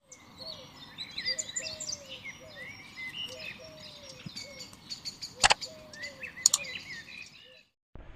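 Several birds chirping and calling over one another, high quick chirps above a repeated lower falling note, with two sharp loud notes about a second apart past the middle; it cuts off suddenly near the end.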